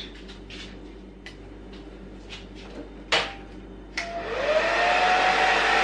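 Small clicks and rustles as hair clips are handled on the wig, with one sharp click a little after three seconds. About four seconds in, a hand-held hair dryer is switched on: its motor whine rises and settles into a steady, loud blowing hum.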